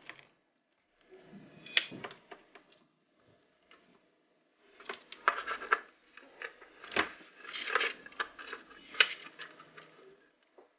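Handling noise from a fish finder's plastic case and cables: a coiled cable rustling and rubbing, then a run of plastic clicks and knocks as a cable plug is worked into the back of the unit, with two sharper clicks about seven and nine seconds in.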